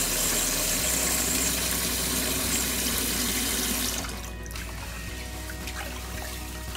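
Kitchen tap running into a rice cooker pot of raw rice, shutting off about four seconds in; then quieter sloshing and small splashes as a hand swirls the rice in the water to rinse off its starch.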